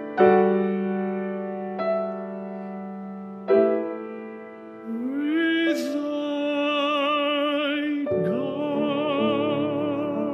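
Piano chords struck three times, each ringing away, then a solo voice enters about five seconds in, sliding up and holding long notes with vibrato over the piano: sacred vocal music with piano accompaniment.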